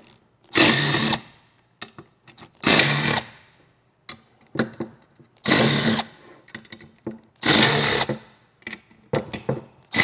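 Cordless power driver spinning out bolts from an aluminium oil cooler housing: four short motor whirs about two seconds apart, with a fifth starting at the very end. Light clicks and taps of the socket being set on the next bolt come between them.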